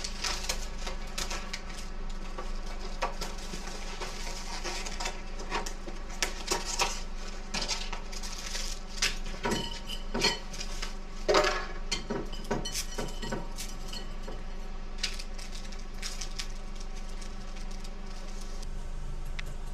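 Preparing instant noodles: china dishes clinking, a packet rustling and dry noodles crunching as they are broken into a bowl, in irregular clicks and rustles that are busiest in the middle.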